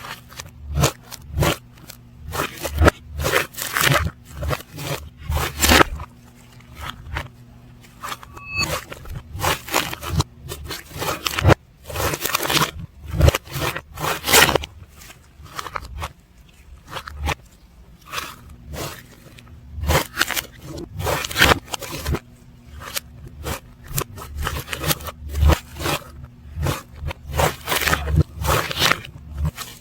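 Slime being squeezed and pressed by hand, with the audio played backwards: uneven crackles and squishy scrapes coming several a second with short pauses, over a faint steady low hum.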